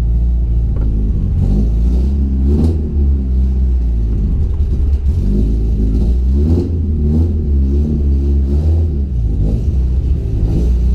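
Holden Gemini's engine running steadily, its pitch rising and falling twice, about two and a half and six and a half seconds in, as the revs are raised and let drop.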